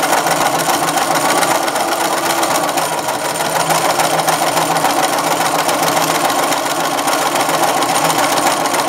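Bernina sewing machine running steadily at an even speed, sewing a wide zigzag stitch through knit fabric that is being stretched as it feeds.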